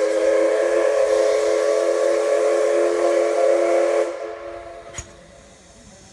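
Steam locomotive whistle sounding one long, steady blast of several notes together, which stops about four seconds in and trails away. A single sharp click follows about a second later, then a faint hiss of steam.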